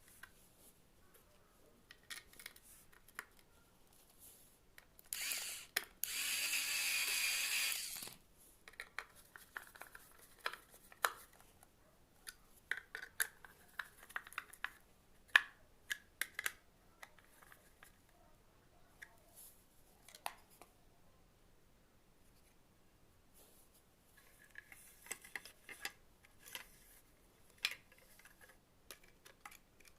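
Small hand tools and plastic parts being handled during the repair of a clothes iron: scattered clicks, taps and scrapes, with a loud rushing whir lasting about three seconds from around five seconds in.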